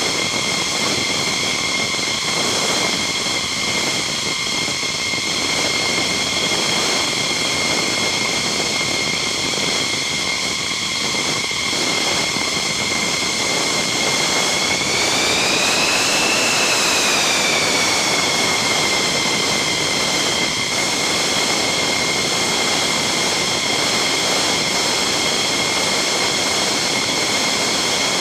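F-15 fighter jet's turbofan engines running steadily: a high whine over a constant rushing noise. About halfway through, the whine rises briefly in pitch, then settles back.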